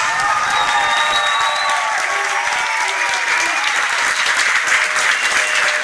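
Audience applauding in a hall: dense, steady clapping at the end of a performance.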